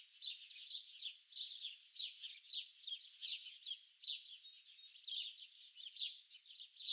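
Birds chirping in quick succession: short, high calls that fall in pitch, several a second, with no break.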